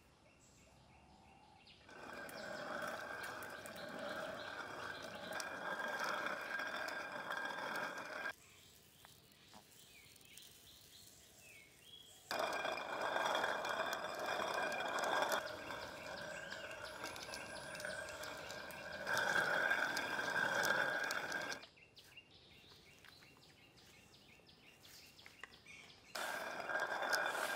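Hand-turned stone quern grinding dried lentils and wheat: the upper millstone, rotated by its wooden handle, gives a steady grating rumble. It starts about two seconds in, stops for a few seconds twice while grain is fed into the centre hole, and starts again near the end.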